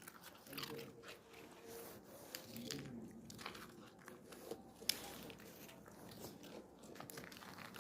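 A dog chewing and crunching something hard: a run of irregular crunches, with one sharp crack about five seconds in.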